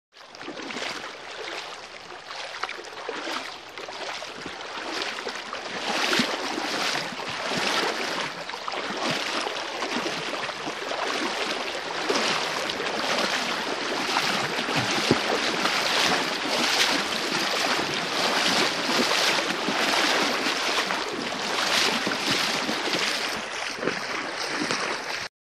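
Rushing river water, a steady splashing noise that swells and ebbs irregularly.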